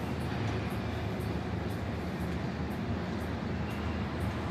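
Diesel locomotive engine running with a steady low drone as a train nears the level crossing. A faint high ticking comes about twice a second.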